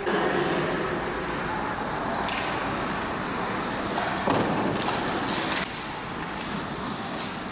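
Ice hockey skates scraping and carving on the ice during close play by the net, with a louder stretch about four seconds in.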